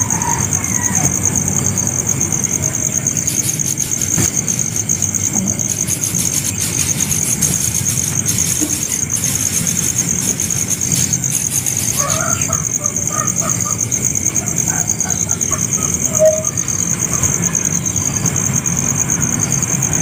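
Steady high-pitched insect drone over a low background rumble. Short squeaky calls come in the second half, the loudest a single squeak about sixteen seconds in, as greater coucal chicks beg at the nest.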